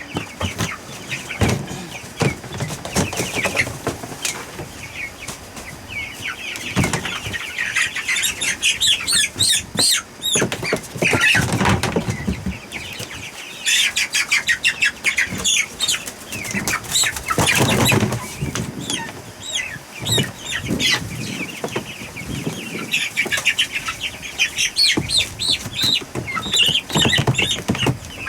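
Young poultry being caught and handled: bursts of wing flapping and scuffling amid many short, high calls, with some clucking.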